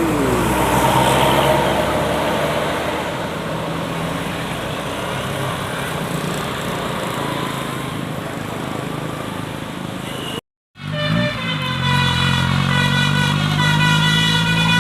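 Large tour buses passing close by with engine and road noise; the tail of a falling horn note dies away at the start. After a brief cut, a bus horn sounds one long steady note over the bus engine, which rises in pitch.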